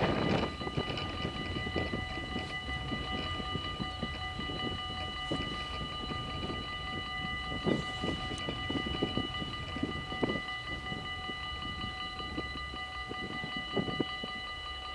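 Level-crossing warning bells of a Dutch automatic half-barrier crossing ringing steadily at several pitches while the barriers come down ahead of a train, with wind rumbling and gusting on the microphone.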